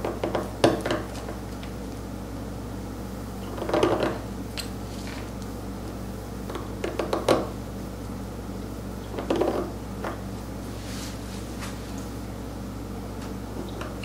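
Steel seal-carving knife scraping and chipping into the face of a stone seal in about four short bursts of strokes with pauses between, over a steady low hum.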